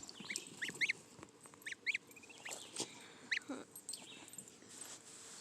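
Goslings peeping: a scatter of short, high calls, several in quick succession in the first few seconds.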